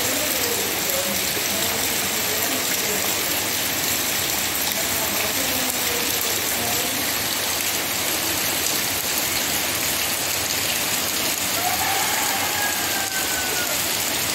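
Steady rain shower pouring down onto the leaves of fruit trees: an even, unbroken hiss.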